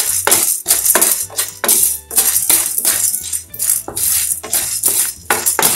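Background music with a quick, steady percussion beat of about two and a half strokes a second over a low bass line.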